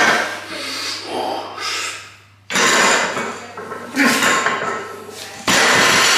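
Heavy deadlift on a bumper-plate-loaded elephant bar: the lifter's loud, forceful breaths and strain as he pulls the bar, with the bar and plates knocking on the wooden lifting platform. There are several sudden loud stretches, the last starting about five and a half seconds in as the bar comes back down.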